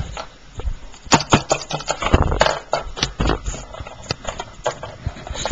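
Irregular tapping and clicking of small plastic toy figures and props being handled and set down on a hard surface, with a denser run of knocks about two seconds in.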